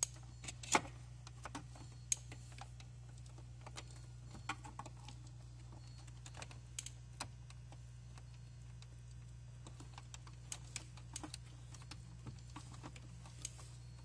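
Small irregular clicks and taps of a screwdriver and a wire being worked into a hot tub control pack's screw terminal block, a few sharper clicks about one and two seconds in. A steady low hum runs underneath.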